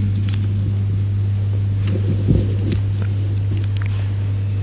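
Steady low electrical hum, with a few faint clicks and a soft knock about halfway through.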